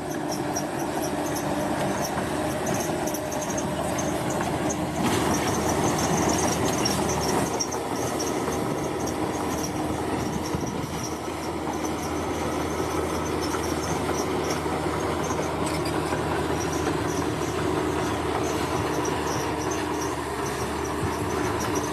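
Large crawler bulldozer working: its diesel engine runs steadily with metallic clatter and squeal from the steel tracks. It grows briefly louder about five seconds in.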